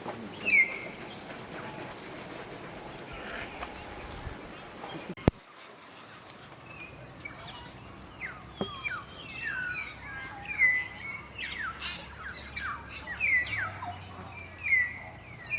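Birds calling in jungle: short, sharp chirps that sweep downward in pitch, coming thick and fast in the second half, over a steady high insect drone. A single click is heard about five seconds in.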